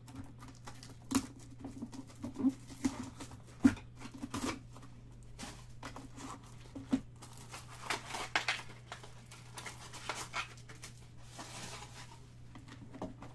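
Plastic shrink wrap being torn and peeled off a trading-card box, crinkling, with small clicks and knocks as the box and packs are handled.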